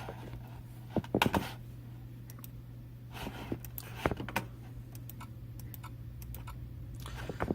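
Scattered clicks and taps from a computer keyboard and mouse, with a quick cluster about a second in, over a steady low hum.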